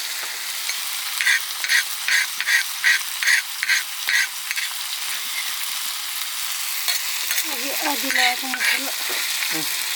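Chicken curry sizzling in a pan while it is stirred, with a quick run of about nine scraping strokes over a few seconds. The frying hiss carries on steadily underneath.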